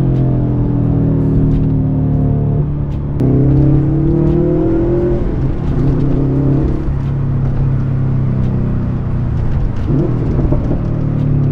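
Subaru WRX STI's turbocharged 2.5-litre flat-four engine and AWE Touring cat-back exhaust, heard from inside the cabin while driving. The engine note falls at first, then jumps up about three seconds in and rises as the car accelerates, before settling into a steady drone.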